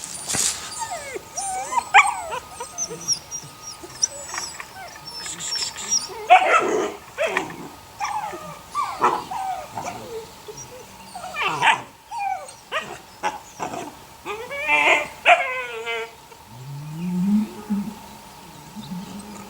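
Eight-week-old puppies whining and yelping in many short cries that slide up and down in pitch, with a lower drawn-out rising whine near the end.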